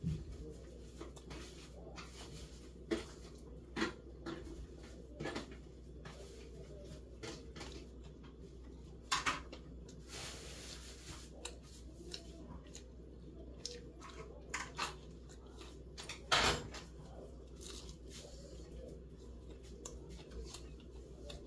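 Eating sounds from fried chicken being eaten by hand: sparse small mouth clicks, chewing and tearing of the meat. There is a brief rustle near the middle and one louder knock about sixteen seconds in.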